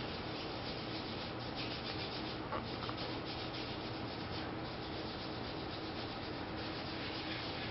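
Soft rubbing of gauze on a dog's skin during a surgical scrub, with a few faint scuffs over a steady room hiss and low hum.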